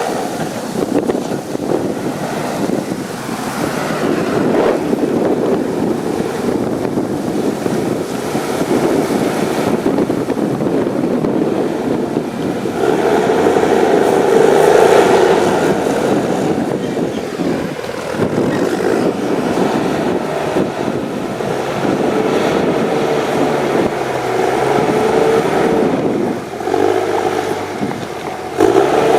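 The HSM 904 S's 6.7-litre diesel engine running under varying load, swelling louder about halfway through and again near the end, with rushing wind noise on the microphone.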